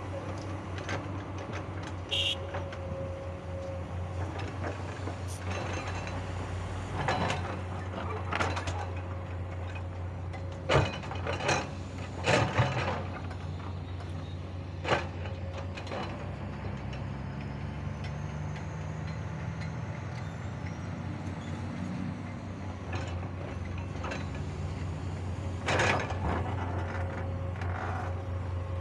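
Hydraulic excavator's diesel engine running steadily while it digs and loads soil into a dump truck, with scattered clanks and knocks from the bucket and falling dirt, a cluster of them about midway and another near the end.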